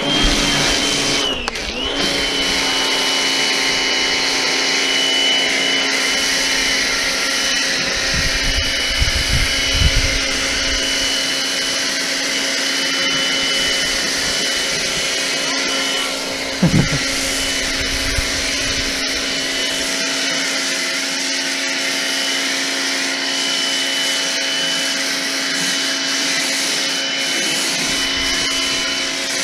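Electric pressure washer's motor and pump switching on and running steadily under load as it sprays through a foam cannon, with the hiss of the spray. The pitch sags briefly about a second and a half in, then settles.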